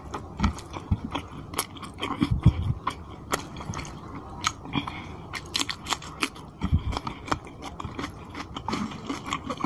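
Close-miked wet chewing and lip-smacking of a mouthful of rice and chicken curry, many quick sharp clicks and soft thumps, with the squish of fingers working curry-soaked rice on the plate.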